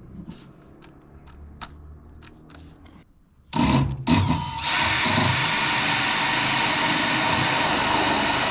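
A few light clicks, then a power drill starts about three and a half seconds in and runs steadily at a constant speed.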